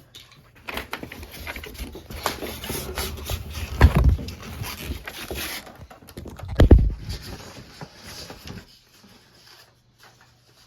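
Rustling, scraping and clicking of cardboard box packaging being handled, with two heavy thumps about four and seven seconds in.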